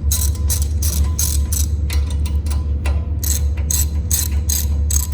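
Ratchet wrench clicking in quick, even strokes, about four clicks a second with a brief pause near the middle, as the hinge bolts are backed out of the grill's bottom band.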